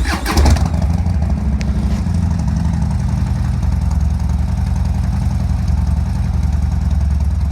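Harley-Davidson Street Bob's V-twin engine starting: it catches at once with a brief burst of revs in the first second, then settles into a steady idle.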